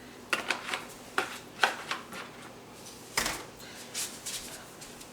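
Several light clicks and knocks of kitchen items being handled at the stove, scattered irregularly, with a sharper knock about three seconds in.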